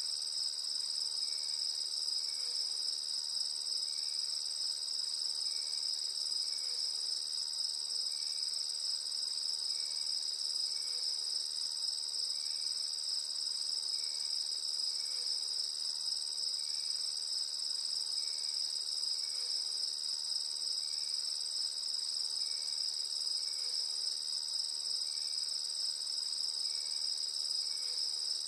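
Steady, unbroken high-pitched trilling of a cricket chorus, with a fainter short chirp repeating about once a second underneath.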